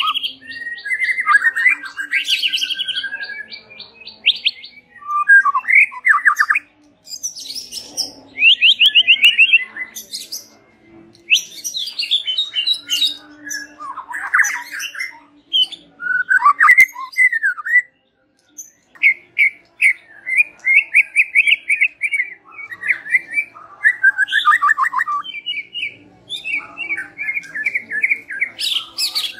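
White-rumped shama (murai batu) singing a long, varied song of fast trills, whistled phrases and chattering runs, with short pauses between phrases and a break of about a second a little past halfway. It is the kind of full song that keepers play as a pemikat (lure) to get other shamas to answer.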